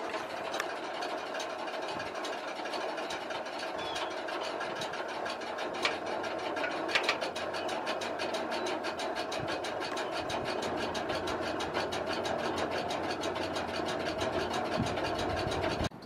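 Pennsylvania Railroad cab signal code generators clicking inside a trackside relay cabinet: several 180 ppm units and one 120 ppm unit pulsing their relay contacts in a dense, steady rhythm of clicks over a steady hum. About five seconds in, the 120 ppm unit stops and ticks up to 180 ppm as track conditions change the cab signal code.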